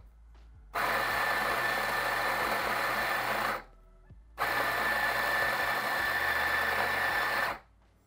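Fiorenzato All Ground flat-burr coffee grinder grinding beans for espresso in two runs of about three seconds each, with a short pause between. Each run is a steady grinding noise with a thin whine over it, starting and stopping abruptly.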